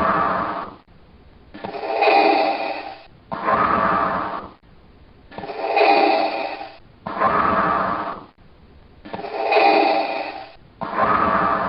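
Darth Vader's breathing sound effect: the mechanical, hissing breath through the respirator mask, an inhale followed by an exhale, repeating in a steady rhythm of about one full breath every four seconds, three breaths in all.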